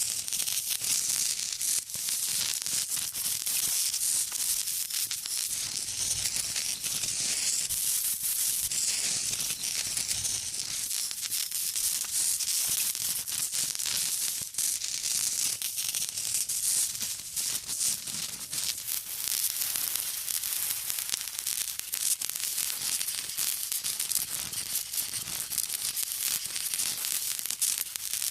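Acid fizzing and sizzling as it eats into something: a steady high hiss thick with tiny crackles and pops.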